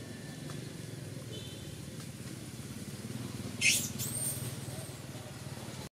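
Steady low engine rumble, like a motor vehicle running. About three and a half seconds in comes a short, sharp high squeal that trails into a thin high whistle for about a second.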